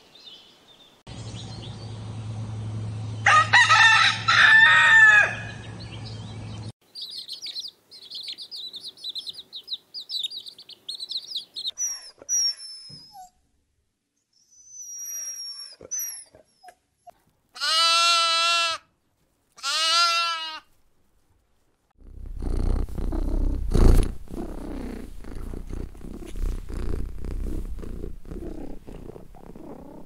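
A series of short animal sound clips: first a pitched call over a low steady hum, then high chirping and whistling, and two long, evenly pitched cries close together. In the last third comes the low, rough rumble of a domestic cat purring.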